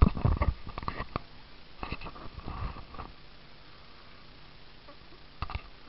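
Handling noise from a handheld camera being moved: a cluster of clicks, knocks and low rumble in the first three seconds, then faint background with one more click near the end.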